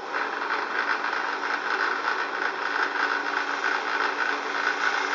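Belt sander switched on and running steadily, its motor hum and belt noise coming up at once with a light vibration rattle.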